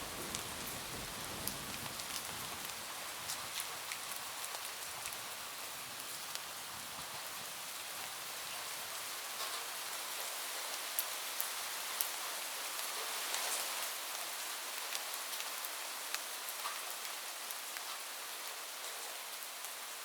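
Steady heavy rain falling on a roof, a constant hiss with single drops ticking sharply here and there. A low thunder rumble dies away in the first second or two.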